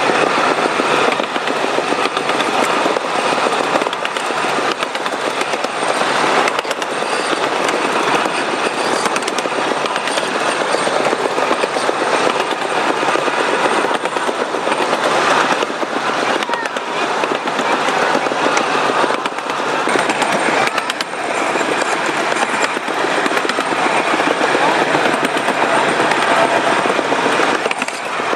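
A 7½-inch gauge ride-on miniature train running along its track, heard from aboard the passenger cars: the steady running noise of the train's wheels on the rails.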